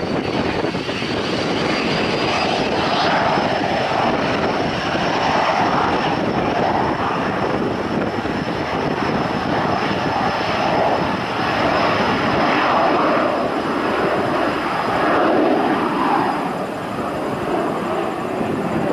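Small twin-engine business jet on its takeoff roll, engines at takeoff power: a steady roar with a thin high whine that climbs a little over the first few seconds, then holds.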